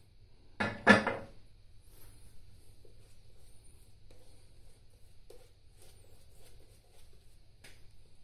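A short, loud voice sound about a second in, then the faint scratchy strokes of a Feather Popular safety razor with an Astra blade scraping lather and stubble off the cheek.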